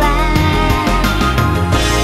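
Japanese pop ballad sung by a woman over a band backing, the voice holding a wavering note at the start before a brief instrumental stretch.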